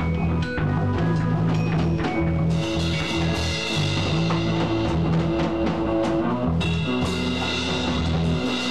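Live rock playing on a drum kit and an electric bass guitar: bass notes run under the drum hits, and cymbals start ringing about a third of the way in, breaking off briefly near the end before resuming.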